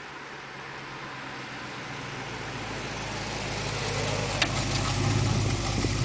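1969 Plymouth Barracuda's V8 running at low speed as the car approaches and draws alongside, growing steadily louder. There is one short click about four and a half seconds in.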